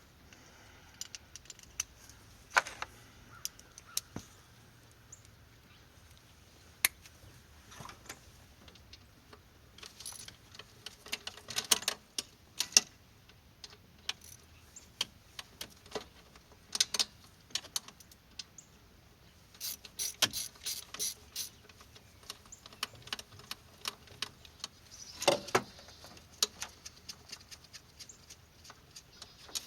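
Scattered metallic clicks and clinks of a 1/4-inch drive hand ratchet and socket working the throttle body bolts loose, with a quick, even run of ratchet clicks about twenty seconds in.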